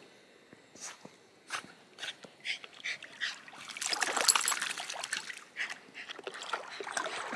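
West Highland white terrier swimming and coming ashore in shallow water: a few short splashes from its paddling, then a longer burst of splashing about four seconds in as it reaches the shallows, followed by softer sloshing as it wades.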